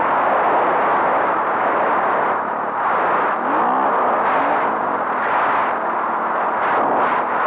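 Enduro dirt bike riding at speed, heard as a steady rush of wind on the onboard microphone mixed with the engine. A few brief rising engine-pitch glides come in the middle.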